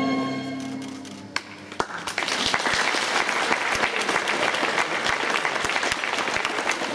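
A held note of the routine's music fades out, then after a couple of single claps an audience breaks into steady applause about two seconds in.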